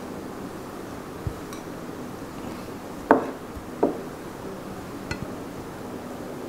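A few short knocks and clinks of tableware as the dishes and a steel plate are handled on a table: two louder knocks about three seconds in, less than a second apart, and fainter taps before and after.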